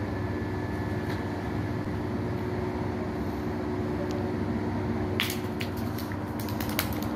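Steady low engine drone, as from the diesel of a boat moored alongside. About five seconds in, a quick run of sharp clicks and taps sounds over it.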